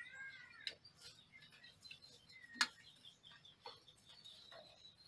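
Mice scrabbling on a wire fan-guard trap over a glass jar: scattered light ticks and clicks, one sharper click about two and a half seconds in. A few faint high chirps at the start.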